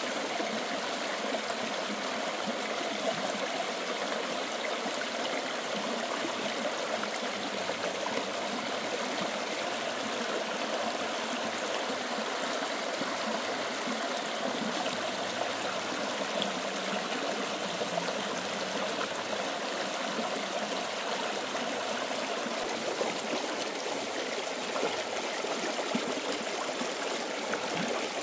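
Stream water running steadily, an even flow without breaks.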